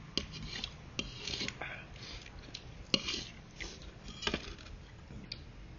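Utensils clinking against a noodle-soup bowl: about five sharp separate clicks spread over a few seconds.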